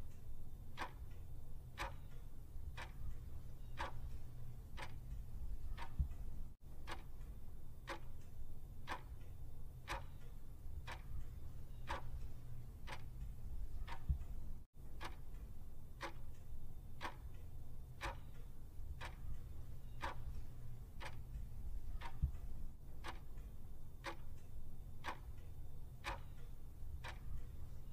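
Clock-tick sound effect counting down a timer: even, sharp ticks at a steady pace, over a low steady hum.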